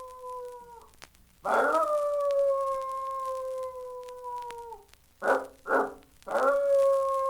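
Canine howling from a vintage Halloween sound-effects record: a howl trails off just under a second in, a second long howl starts about a second and a half in, holds a slowly sinking pitch and drops away near five seconds, two short yelps follow, and a third howl begins near the end.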